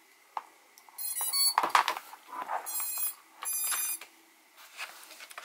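Electronic startup beeps from an FPV quadcopter as its battery is plugged in: three short bursts of tones about a second in, near the middle and a little later. Clicks of handling sound between the first two.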